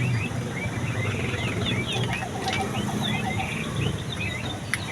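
Battery-powered toy bird showpiece giving rapid, repeated electronic chirps and trills over a low background rumble, with a sharp click near the end.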